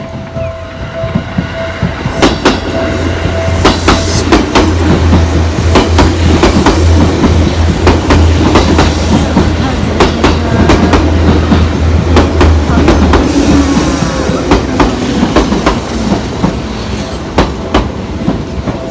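Seibu Railway electric train passing close by, its wheels clicking over the rail joints in a long run of sharp clacks with a low hum underneath, building to a peak in the middle and fading toward the end. At the start a level-crossing warning bell rings a repeating tone, which stops a few seconds in.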